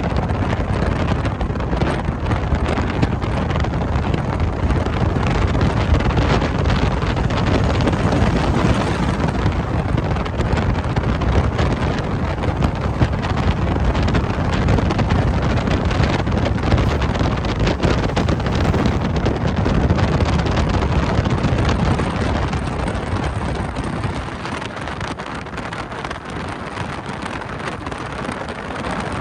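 Steady road and engine noise of a moving vehicle, with wind buffeting the microphone, easing a little near the end.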